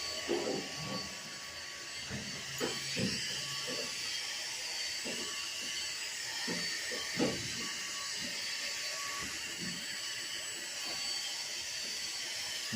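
Small vacuum cleaner motor running steadily with a high whine and hiss, with scattered soft knocks of parts being handled.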